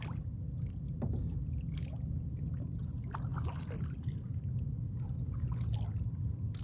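Kayak paddling: water splashing and trickling off the paddle blades in scattered small splashes and drips, over a steady low rumble.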